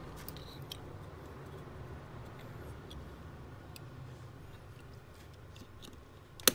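Faint scattered clicks and scrapes of a small screwdriver prying a die-cast toy car's metal chassis away from its body, over a low steady hum, with one sharp click at the very end.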